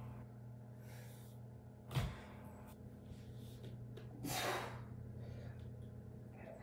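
A person doing sit-ups on a wooden floor: a single sharp thump about two seconds in, then a loud breathy exhale about four seconds in, over a steady low hum.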